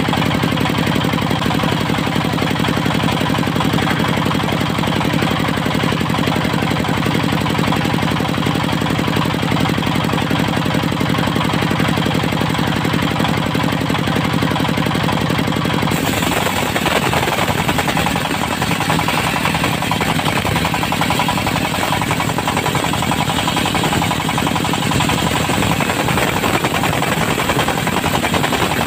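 Diesel engine driving a portable circular sawmill, running loud and steady. About halfway through, the sound changes abruptly to a rougher, hissier noise.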